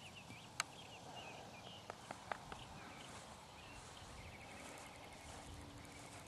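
Faint outdoor background with a few short sharp clicks, one about half a second in and a small cluster around two seconds in.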